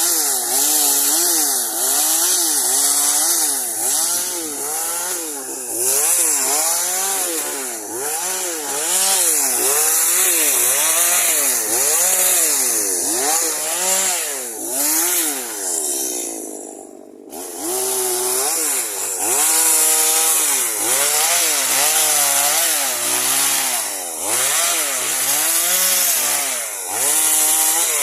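Chainsaw running and cutting pine, its engine pitch rising and falling about once a second as it works through the wood. About two-thirds of the way in, the engine eases down to a low pitch for a moment, then picks up again.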